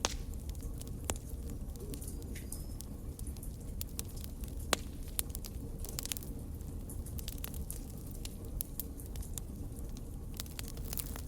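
Fire burning, with a steady low rumble under many irregular crackles and pops. A few pops stand out louder, about a second in and near the middle.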